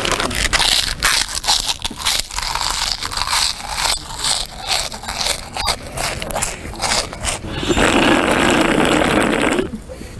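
Loud, deliberately noisy crunching and chewing of snacks, with crinkling of a plastic snack bag, as many irregular crackles and crunches. Near the end a dense, continuous noisy sound lasts about two seconds, then stops.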